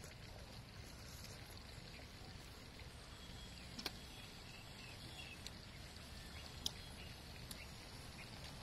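Faint low rumble of wind on the microphone, with two faint clicks, about four and about seven seconds in.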